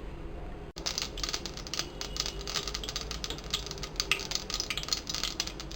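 Mustard seeds popping and spluttering in hot cooking oil in a pan: a rapid, irregular crackle of sharp pops starting about a second in. This is the tempering stage, when the oil is hot enough to make the seeds burst.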